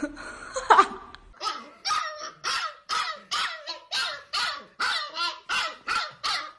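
Husky puppy yipping over and over in short, rapid barks, about three a second, starting about a second and a half in after a single louder cry.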